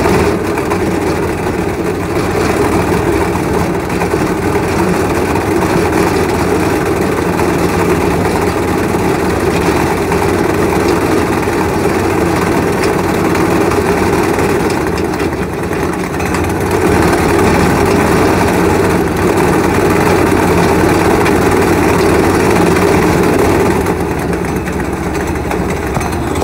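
Go-kart's small engine running steadily under way.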